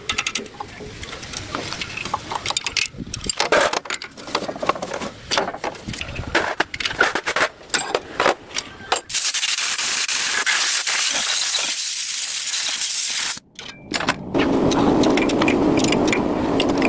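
Metal being scraped and rubbed in irregular strokes, then about four seconds of steady hiss, a short break, and a lower steady rushing noise near the end.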